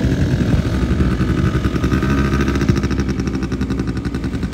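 Small ATV engines running as several quad bikes ride around the track. The sound is a steady engine hum with a fast, even pulse.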